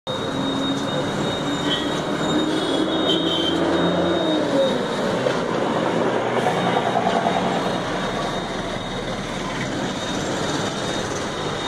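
Loud, steady noise of a passing vehicle, with a squeal that glides down in pitch a few seconds in.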